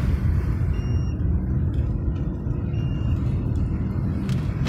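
Steady low rumble of a car driving on a wet road, with engine and tyre noise heard from inside the cabin. A couple of faint clicks come near the end.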